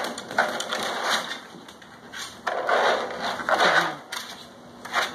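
Rustling, crunching noise of wood-shavings bedding as puppies scramble about in it, coming in two longer bursts.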